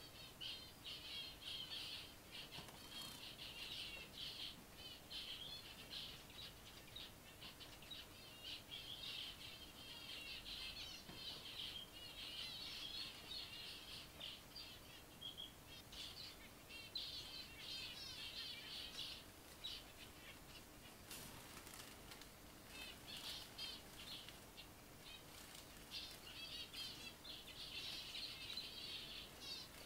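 Zebra finches chirping: repeated bursts of short, quick chirps, with scattered sharp clicks.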